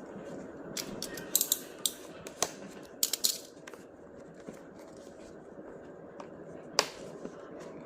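Product packaging being handled and opened: a run of sharp clicks and crinkles in the first few seconds, then a single sharp click near the end, over steady background noise.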